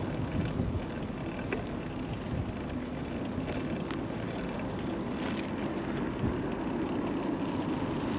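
Steady rolling noise of a mountain bike being ridden, tyres running on the path, with a few faint clicks.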